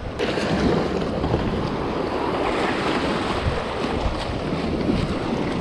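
Small surf washing in around jetty rocks and sloshing in the shallows, a steady rush of water with wind on the microphone.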